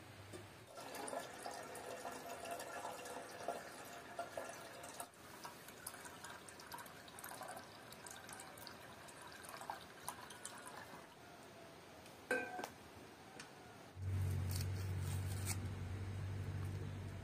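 Water poured from a terracotta clay jug into an enamel pot, a steady splashing pour with a ringing filling note lasting about ten seconds. Near the end a knife clicks through an onion onto a wooden board over a low hum.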